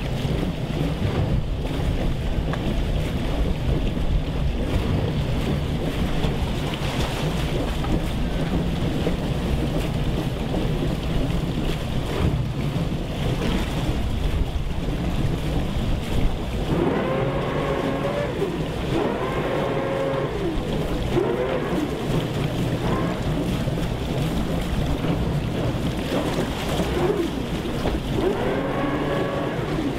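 Low, steady rumble of a flybridge motor yacht's twin engines running at low speed as the boat is maneuvered slowly into a slip, with wind on the microphone.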